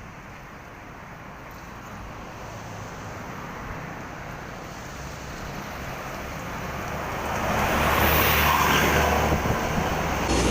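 A bus approaching along the road, its engine and tyre noise growing steadily louder and loudest from about eight seconds in.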